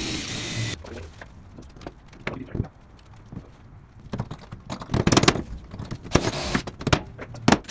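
Scattered metal clinks, knocks and rattles of hand tools and hardware being handled while threaded rods are fitted through a plywood deck on a steel trailer frame. There is a brief rushing noise at the start and another about six seconds in.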